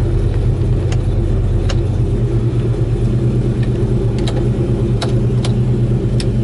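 A 318 small-block V8 with headers idling steadily, heard from inside the cabin. Several sharp clicks come over it, the most in the second half, as dash switches are flicked.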